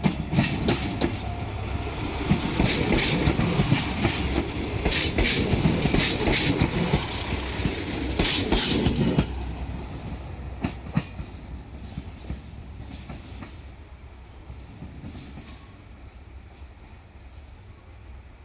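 Diesel railcar passing at low speed, its wheels clanking over the rail joints several times in the loudest stretch. The sound drops off about nine seconds in and fades away.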